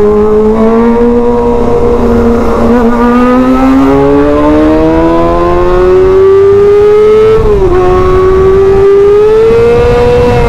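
Kawasaki ZX-25R's 250 cc inline-four, loud through an SC Project titanium exhaust, pulling under way: the engine note climbs steadily for several seconds, dips briefly at a gear change about three-quarters of the way through, then climbs again.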